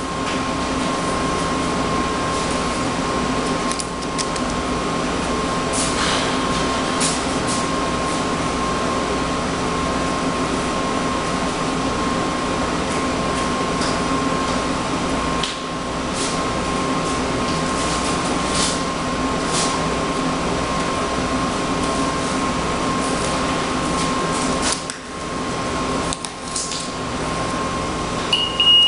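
Steady machine drone with a constant high hum, from shop equipment running, with a few light clicks. A high electronic beeping starts near the end.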